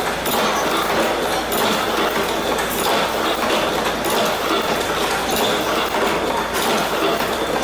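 Chain-processing machine running: steel chain links rattle and clatter as a pusher dog steps them along a metal feed track, with a sharper clack about once a second.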